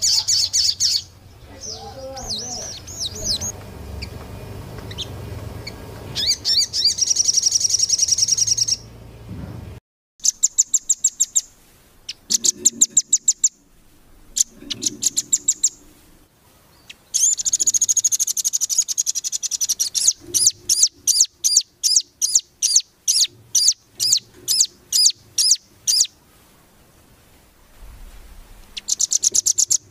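Recorded songs of small songbirds: fast series of sharp, high-pitched repeated notes in short sections that start and stop abruptly, with a dense trill about 17 to 20 seconds in.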